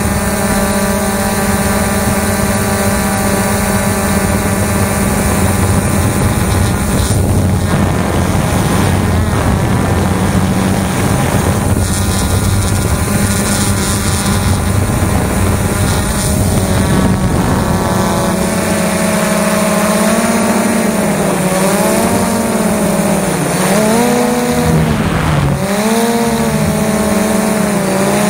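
XK Detect X380 quadcopter's motors and propellers whirring, picked up by the camera on the drone, over a steady rushing noise. The pitch holds steady for most of the time, then wavers up and down in the last third as the motor speeds change.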